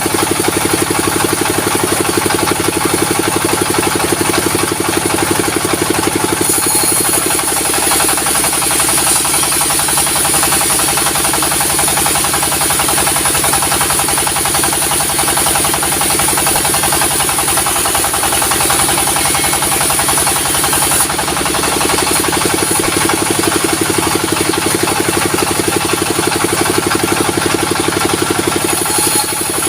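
Diesel-driven sawmill running steadily with a loud, even engine beat. From about six seconds in until about twenty-one seconds in, a high hiss rides over it as the saw cuts through the timber beam.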